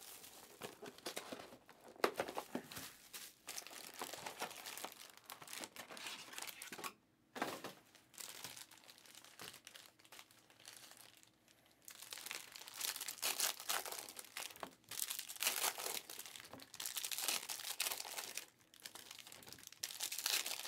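Foil wrappers of Panini Prizm football card packs crinkling as the packs are handled and shuffled. It comes and goes, with short lulls about seven and eleven seconds in.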